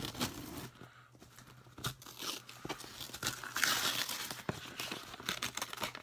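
A parcel being opened by hand: tearing and crinkling of its wrapping with scattered clicks and rustles, busiest about four seconds in.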